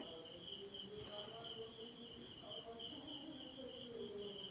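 Faint, steady, high-pitched trill of insects, pulsing rapidly without a break.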